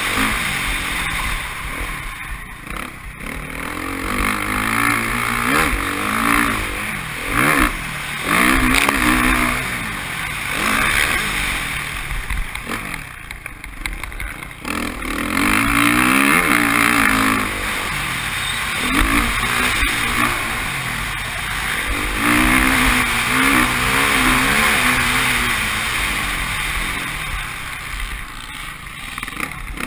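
Motocross bike engine heard close from an on-board camera, revving up and falling back again and again as the throttle is opened and shut off, with throttle-off dips about 2, 7, 13 and 28 seconds in.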